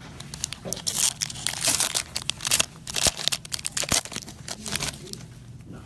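A trading-card pack wrapper being torn open and crinkled, in a quick run of irregular crackles and rips.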